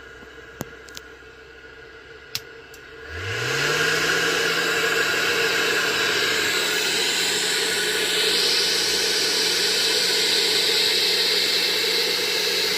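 A few relay-like clicks, then about three seconds in a Daikin combi boiler's combustion fan spins up quickly to a steady speed and runs with a steady hum and rush of air.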